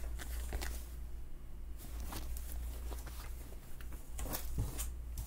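Clothing being handled and pulled from a cardboard box: scattered rustles of fabric and light knocks, over a steady low hum.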